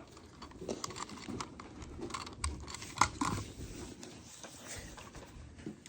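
Light handling noise: scattered small clicks and rustles, with a sharper click about three seconds in.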